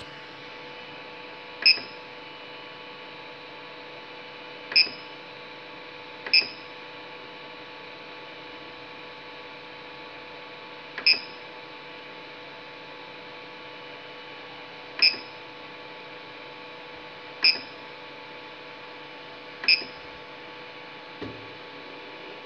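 Short, high beeps from the Creality Ender 3 3D printer's control-panel buzzer, seven of them at uneven intervals, as the menu knob is clicked through the menus. Underneath is a steady hum of the printer's cooling fans.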